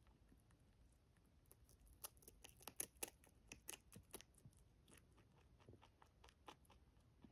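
Rabbit crunching and chewing a dried tangerine chip: a quick run of faint crisp clicks, thickest in the middle.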